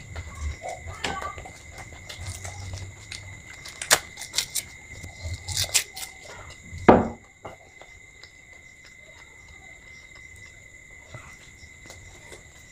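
Eating at a table: chewing and mouth smacks with small clicks and taps from hands and plates, over a steady high-pitched whine. About seven seconds in there is a single thud, the loudest sound, as a glass of water is set down on the table.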